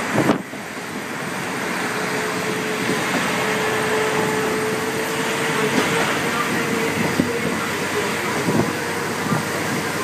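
Kazekko diesel railcar, a converted KiHa 48, running along the line, heard from on board: a steady rumble of wheels and air with a faint steady whine, a sharp knock near the start and a few rail-joint clacks later on.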